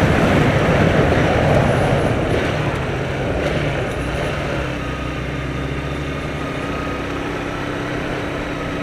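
Car engine and road noise heard from inside the moving car: loud at first, easing over the first few seconds, then settling into a steady engine hum.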